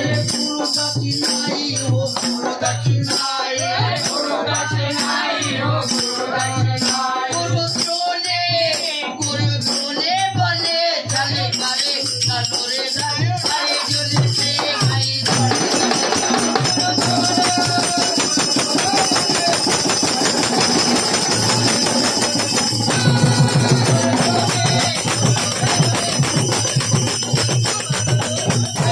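Men singing a devotional bhajan to a steady beat on a rope-laced barrel drum (dholak), with jingling hand percussion. About halfway through, the singing gives way to faster, denser drumming and jangling as the performance picks up.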